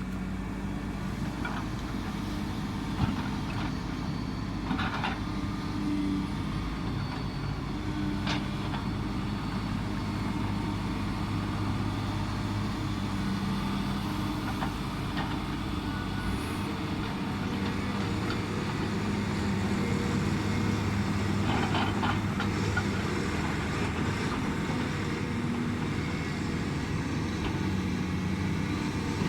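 Hydraulic excavator's diesel engine running steadily as the machine works, with a few sharp knocks now and then.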